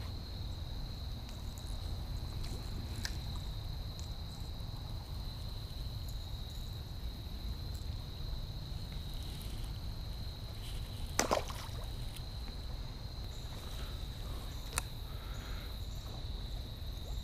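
Steady high-pitched drone of insects over a constant low rumble, with a few faint clicks and one sharper knock about eleven seconds in.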